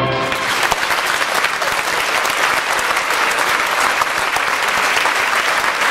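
The orchestra's closing chord cuts off right at the start, then a theatre audience applauding steadily.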